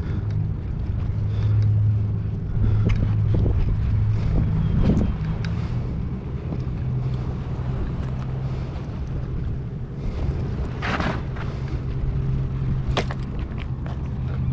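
A low, steady engine drone, with wind on the microphone. Two short knocks come in the second half.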